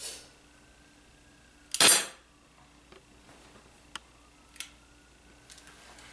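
A single loud gunshot-like crack from the pistol about two seconds in, dying away quickly, followed by a few light clicks.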